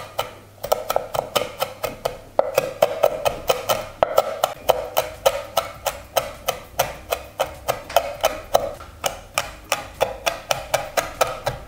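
Chef's knife rapidly chopping garlic on a wooden cutting board: a steady run of sharp knocks of the blade on the wood, about four to five a second.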